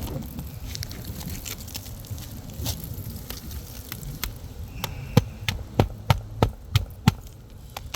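Crackling and rustling of 3-tab asphalt shingles being handled, then a quick run of about eight sharp knocks over two seconds.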